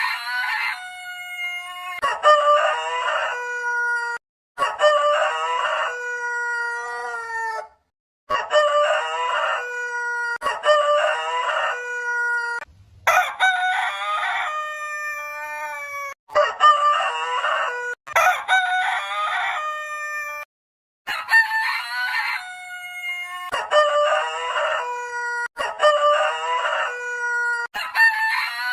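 Roosters crowing, about ten crows one after another, each lasting two to four seconds; several stop abruptly as the next crow starts.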